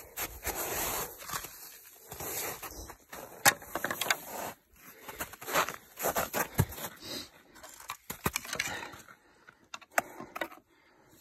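Footsteps crunching over snow and rocky ground, an irregular run of crunches and scrapes with short pauses.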